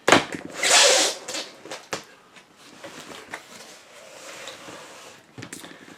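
Cardboard shipping box being opened by hand: a sharp click, then about a second of loud rustling of the packaging, another click about two seconds in, and quieter rustling after.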